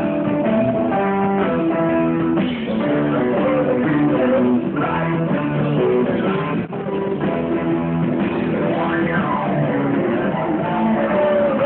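Live blues-rock band playing an instrumental break led by guitar, with no vocals.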